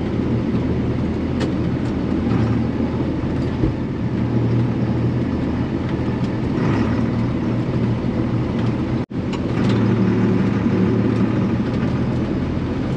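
Farm tractor engine running steadily while the tractor moves a disc. It cuts out for an instant about nine seconds in and runs a little louder after.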